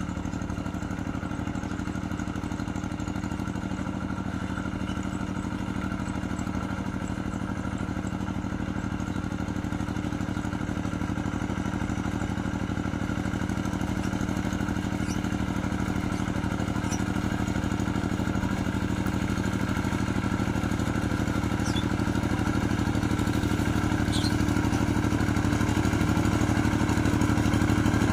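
Small hand-tractor engine running steadily under ploughing load, growing gradually louder.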